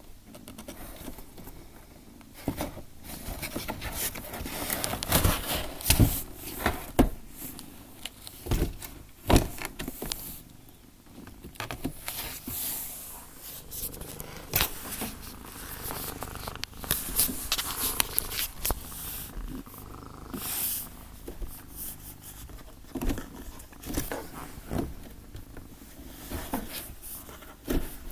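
Domestic cat purring close to the microphone, with frequent clicks and rustles throughout.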